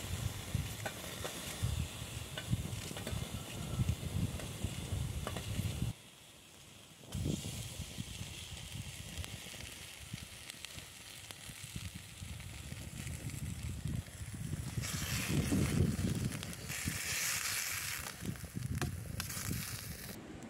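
Fat sizzling in a steel frying pan over a small wood fire, with small crackles and low rumbling gusts. The sound drops out briefly about six seconds in, and the hissing grows louder over the last few seconds.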